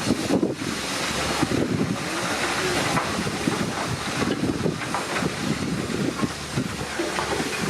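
Steam locomotive working on the move: exhaust and steam hiss with rail noise.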